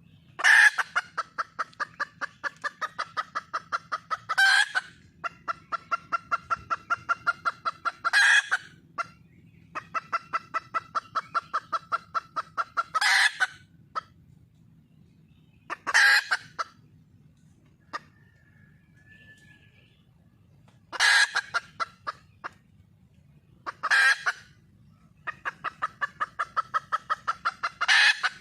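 Junglefowl hen calling for a mate: runs of rapid clucks, about four a second, each run broken by a louder, harsher call, over and over with short pauses between runs.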